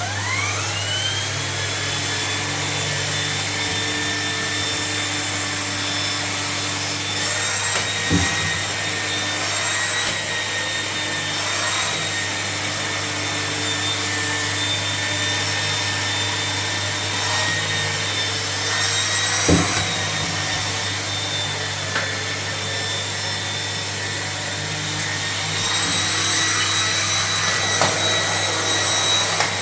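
Vacuum cleaner motor starting up with a rising whine that settles within about two seconds, then running steadily. Two brief knocks sound partway through.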